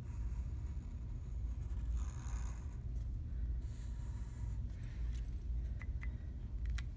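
A steady low rumble underlies faint scratching of a Sharpie marker drawn across paper in a couple of short strokes, about two and four seconds in, with a few light clicks near the end.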